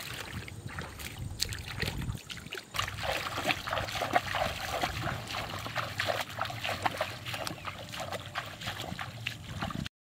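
Footsteps wading and splashing through shallow river water, a steady run of irregular small splashes and sloshes. The sound cuts off suddenly near the end.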